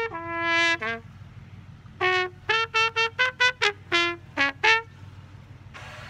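Trumpet playing: one held note, a pause of about a second, then a quick run of about nine short notes.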